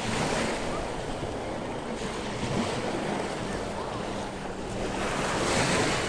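Gentle waves of the Sea of Azov washing in the shallows, with wind buffeting the microphone; the rush swells louder about five seconds in.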